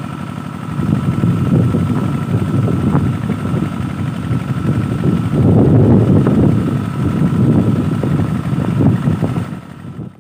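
Strong wind buffeting the microphone: a gusty, uneven low rumble that rises about a second in and falls away near the end.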